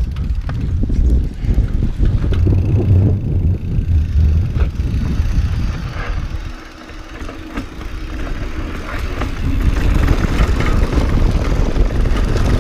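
Wind buffeting the camera microphone over the rumble of tyres on a rough dirt trail and the rattle of a mountain bike on the way down. It eases briefly about halfway through, then picks up again.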